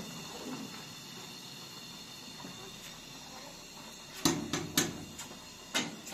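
Metal clatter: a ladle knocking about five times against an aluminium cooking pot and its lid, in a quick cluster starting about four seconds in, over a faint steady background.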